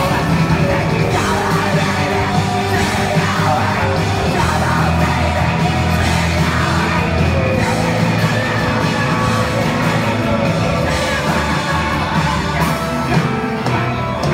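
Six-piece rock band playing loud live, the singer shouting and singing into the microphone over electric guitars, heard from among the crowd in a hall.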